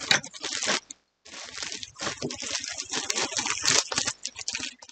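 Clear plastic bag of yarn skeins crinkling and crackling as hands turn it over and feel along its edges for an opening, with a brief pause about a second in.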